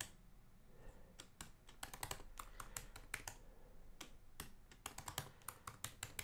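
Computer keyboard typing: two quick runs of key clicks, a new password typed and then typed again.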